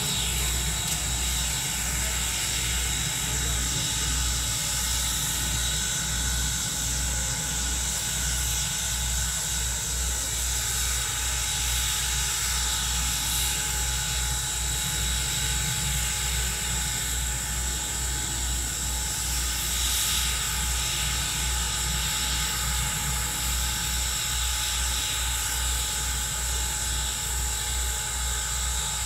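Norfolk & Western 475, a 4-8-0 steam locomotive, standing with steam up: a steady hiss over an even, rhythmic low pulsing, about two or three beats a second.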